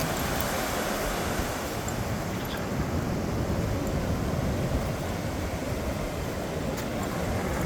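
Ocean surf washing on the beach, a steady rush, with wind rumbling on the microphone.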